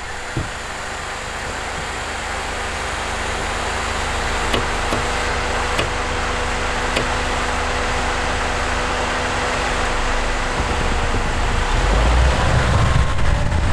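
Steady vehicle engine and road noise, with a constant low hum, growing gradually louder.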